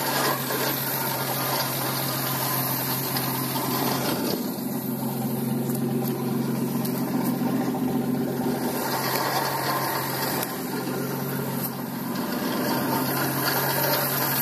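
Old car engine idling steadily on its first run after four years of sitting, with a steady hiss over the engine note.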